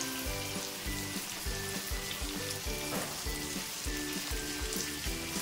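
Pomfret pieces frying in shallow oil in an iron pan, a steady sizzle. Background music with notes and a regular beat plays under it.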